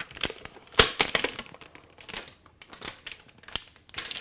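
Thin plastic protective film being peeled off and crumpled by hand, with irregular crackles and crinkles. The loudest crackle comes about a second in; they thin out in the middle and pick up again near the end.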